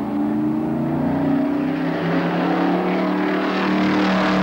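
Ralt RT3 Formula 3 car's four-cylinder engine running loudly, its note holding fairly steady and swelling slightly toward the end.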